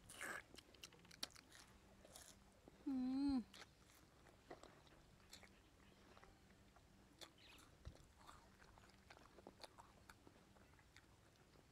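Faint wet clicks and smacks of a baby macaque licking and eating ice cream from a cone. A short wavering, voice-like tone sounds once, about three seconds in.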